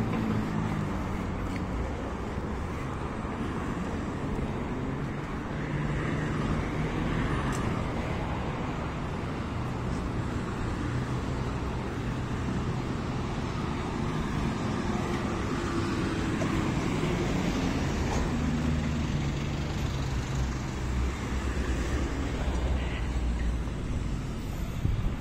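Steady city road traffic: car engines and tyres on the street alongside, with vehicles swelling louder as they pass by.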